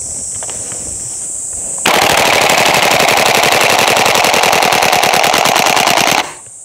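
KSC TAR-21 gas blowback airsoft rifle firing one long full-auto burst of about four seconds, starting about two seconds in: a rapid, even clatter of shots that stops abruptly.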